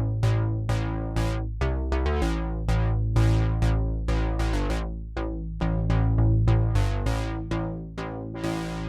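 Sequential Take 5 analog polysynth playing a preset: a steady run of plucked notes, about three a second, each bright at the attack and darkening as it fades, over held bass notes.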